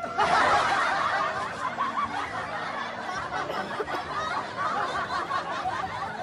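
Laughter from several voices, starting suddenly and loudest in the first second.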